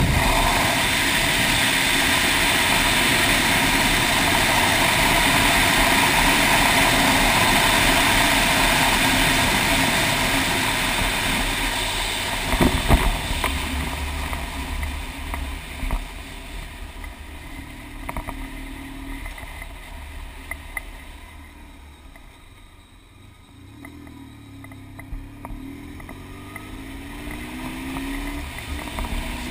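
Motorcycle riding at road speed, with wind rushing over the camera's microphone. The wind noise fades after a single knock near the middle as the bike slows, leaving the engine audible. Toward the end the engine note rises as it speeds up again.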